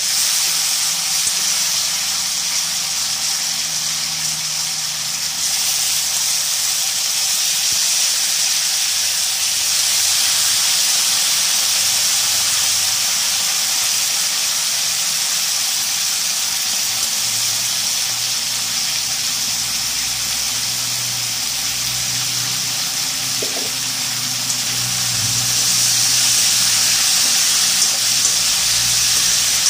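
Wet potato slices sizzling in hot tempered oil in a kadai, a steady loud hiss. The water still on the slices, just lifted from their soaking bowl, spits and steams in the oil.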